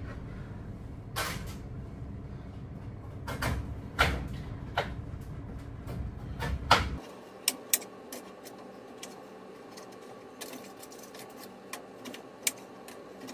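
Knife cutting potatoes on a wooden cutting board: irregular sharp knocks and clicks as the blade goes through and meets the board.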